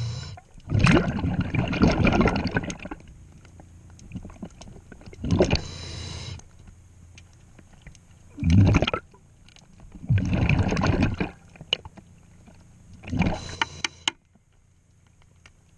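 A diver's scuba regulator underwater: about five breaths a few seconds apart, heard as bursts of hissing and bubbling from the regulator and the exhaled bubbles.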